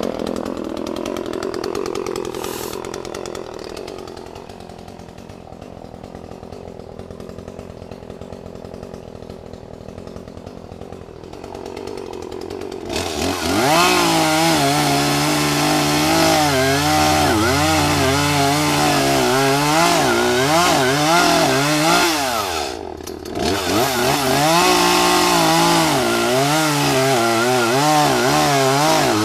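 Two-stroke chainsaw running at low throttle, then revved up about halfway through and held at full throttle, its pitch wavering as it works through wood. It drops off briefly once and then revs back up.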